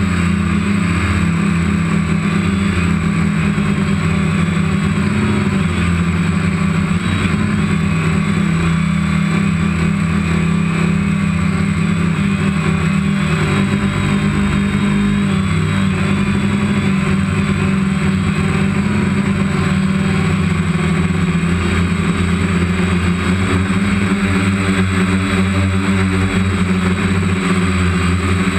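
Multirotor drone's motors and propellers whirring steadily, heard from the camera on board: a constant hum with a higher whine that wavers slightly as it flies.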